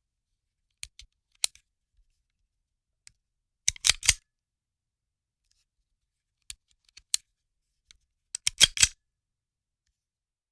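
Handgun being handled: groups of sharp metal clicks and clacks from the gun's mechanism with silence between them. There are a few light clicks about a second in, a loud quick cluster near four seconds, two clicks near seven seconds, and another loud cluster near the end.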